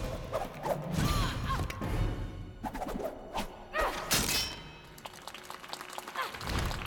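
Film fight soundtrack: a music score under metal blades clashing and whooshing, with thuds. The sharpest hits and swishes come about three to four and a half seconds in, then it quietens.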